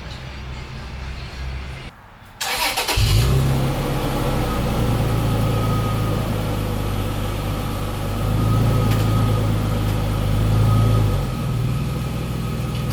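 Pickup truck engine starting about two and a half seconds in, then idling with a steady low hum that drops a little near the end.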